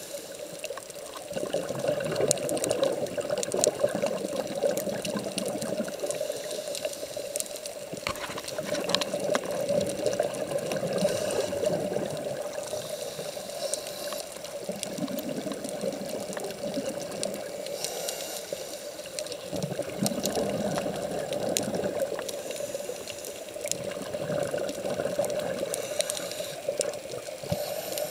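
Muffled underwater sound picked up by a camera held under the sea: a steady hum with a wash of water noise and many scattered sharp clicks, swelling and fading slowly.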